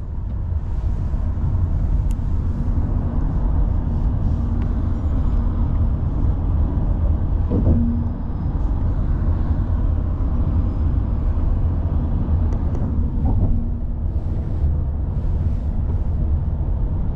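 Steady low road and engine rumble heard from inside a taxi's cabin as it drives along a highway.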